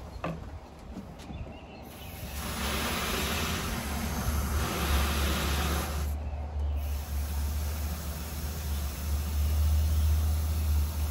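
Water from a garden hose spray nozzle hissing into a plastic pump-up tank sprayer as it is filled, over a steady low rumble. The hiss starts about two seconds in and drops briefly near the middle before running on.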